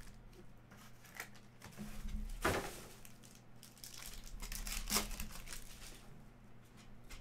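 Basketball trading card pack wrapper being torn open and crinkled by hand, in irregular crackles with the sharpest about two and a half and five seconds in.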